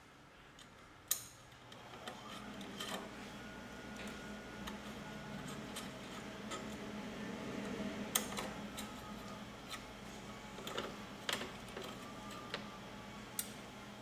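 Hex key turning the screws of a shotgun's quad-rail handguard as they are tightened down: scattered light metal clicks and ticks, the sharpest about a second in, over a faint steady hum.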